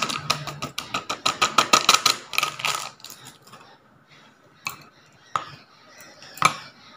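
A spoon tapping and scraping in quick succession for about three seconds as chilli powder is knocked out of its packet into a glass bowl. Then three separate knocks, a second or so apart, as the hands work at the bowl.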